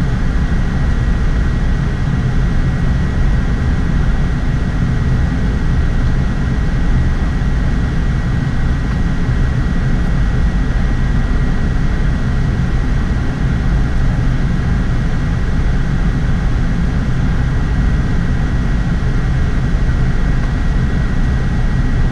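Steady in-flight noise of a Boeing 787-8 on approach: a constant rush of airflow and engines, heavy in the low end, with a thin steady whine above it.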